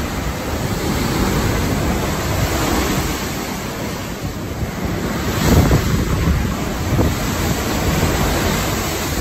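Rough sea waves breaking against a ship's hull, mixed with strong wind buffeting the microphone. The noise is steady and loud, with louder surges about halfway through and again a little later.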